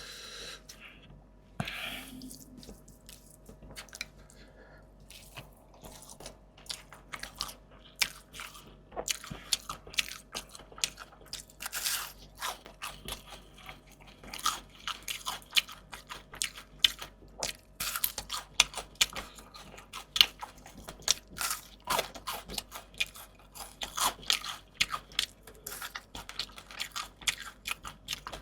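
A person chewing and crunching crisp food, a mukbang of fried fish and fresh vegetables. The crunches are sparse for the first several seconds, then come dense and rapid from about eight seconds in.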